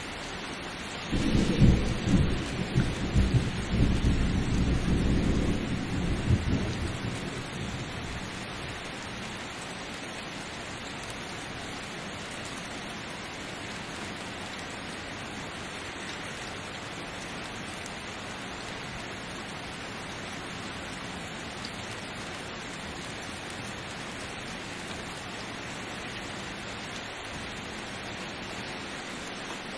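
Steady rain with a peal of thunder: a crackling rumble breaks out about a second in, rolls on for several seconds and dies away, leaving the even hiss of the rain.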